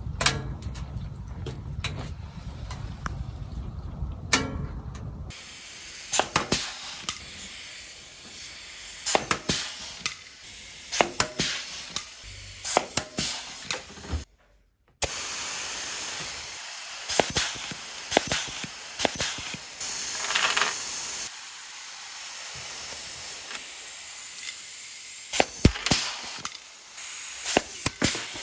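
A steady hiss with scattered sharp clicks and knocks, changing abruptly several times, with a second of near silence about halfway through.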